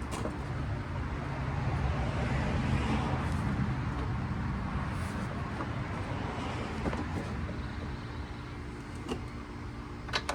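Motor vehicle going past: a steady road rumble that swells and then fades. A couple of light clicks near the end.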